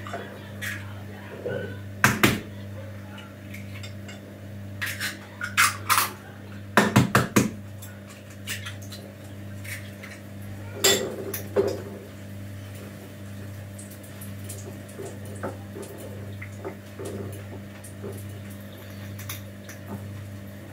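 Eggs knocked and cracked against the rim of a glass bowl, with shells and a fork clinking on the glass: clusters of sharp knocks in the first half and lighter scattered taps later, over a steady low hum.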